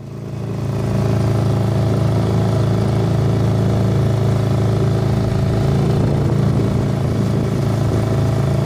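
Small boat's outboard motor running at a steady speed, fading in over the first second and then holding an even drone.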